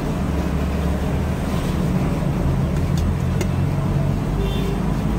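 A steady low background rumble, with a few small sharp clicks as boiled eggshells are cracked and peeled by hand.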